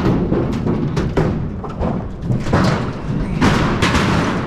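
Wooden boards and cabinet pieces knocking, thudding and scraping as they are wrenched loose and shifted by hand: an irregular run of knocks through the whole stretch.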